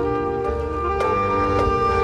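Marching band playing live: brass and woodwinds holding chords whose notes change every half second or so, with a sharp percussion hit about a second in.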